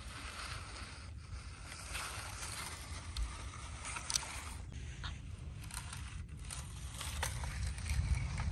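Small RC toy trucks crawling over coarse wet sand and gravel: scattered crunches and clicks over a steady low rumble of wind on the microphone, getting louder near the end.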